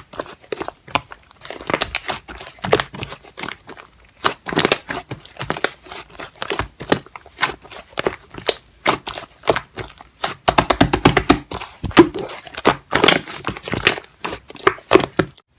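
Slime being squished and stretched by hand: dense, irregular crackling and clicking, with a quick, even run of clicks about ten seconds in.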